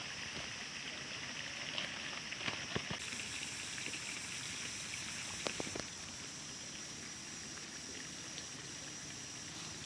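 Water trickling steadily, with a few faint clicks about two and five and a half seconds in.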